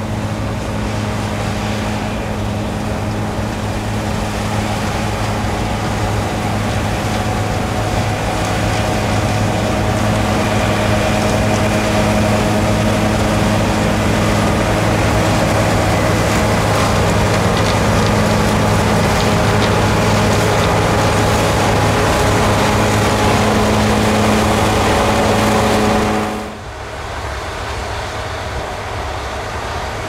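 Claas Lexion 8700 combine harvester running under load while cutting rice: a steady diesel hum with several constant tones over the rush of the threshing machinery, growing a little louder over the first several seconds. Near the end it drops abruptly to a quieter, duller sound.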